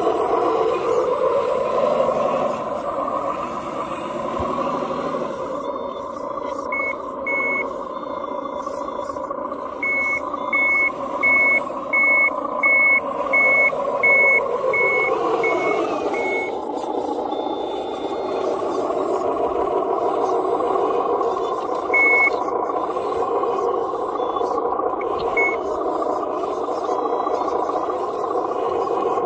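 Radio-controlled Cat wheel loader running, its engine-like drive sound rising and falling in pitch as it moves. A reverse alarm beeps steadily, about one and a half beeps a second, for several seconds in the first half as it backs up, then twice more later.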